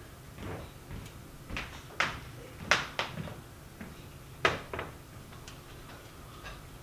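Several sharp knocks at uneven spacing over a steady low hum, two of them clearly louder than the rest.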